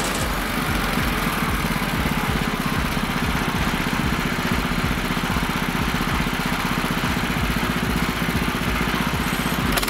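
Portable bandsaw mill's gasoline engine running steadily at constant speed, with a fast, even pulsing.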